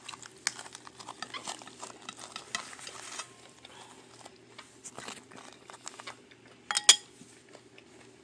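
Close-up eating and tableware sounds: a run of small wet clicks and crackles over the first few seconds, sparser after. A metal spoon then clinks quickly against a ceramic dish a few times just before seven seconds in, the loudest sound, with a short ring.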